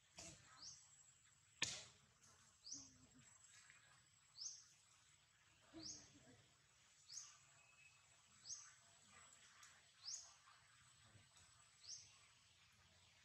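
Faint, short rising chirps repeated over and over, about one a second, typical of a small bird calling, with one sharp click about a second and a half in.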